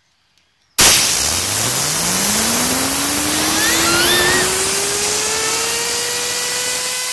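Compressed-air blow gun hissing, starting abruptly about a second in, as it spins up a fidget spinner. Under the hiss the spinner's whir climbs steadily in pitch as it speeds up, then levels off near the end.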